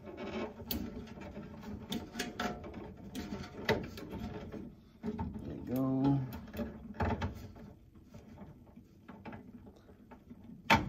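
Scattered small clicks, taps and scrapes of hands working on thermostat wiring and its wall mount, with one sharp click near the end.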